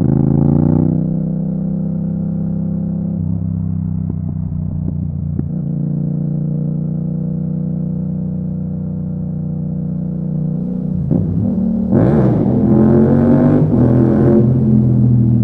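Yamaha MT-07 parallel-twin engine breathing through an Akrapovic exhaust, heard from the rider's seat. The revs rise briefly at the start and then hold steady at a cruise. About eleven seconds in, the revs climb under hard acceleration and the engine gets much louder, echoing inside a road tunnel.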